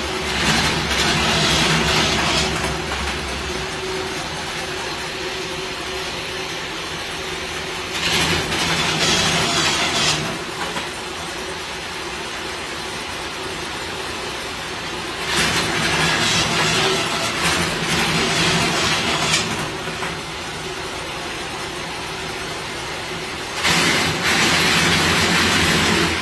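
Satay skewer-making machine running with a steady hum. About every seven or eight seconds it goes louder and noisier for two to four seconds, then drops back.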